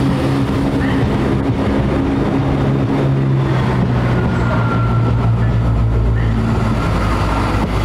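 Diesel train engine running at a station, a loud steady low drone whose note changes about halfway through as a deeper rumble builds.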